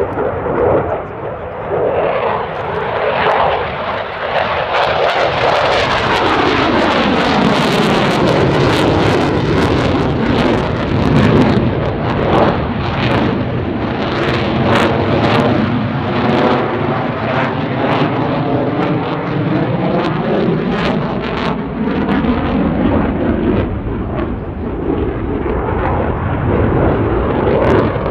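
Jet noise from Eurofighter Typhoons' twin Eurojet EJ200 turbofans during a dogfight display, building over the first several seconds and then staying loud. The tone sweeps and shifts as a jet passes overhead, with sharp crackles near the middle.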